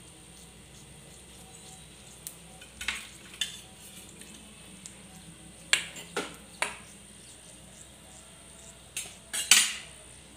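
A metal spoon scraping and tapping against a non-stick kadai as dried red chillies are stirred in hot oil for a tempering, in a handful of short strokes with the loudest near the end. Faint sizzling of the oil underneath.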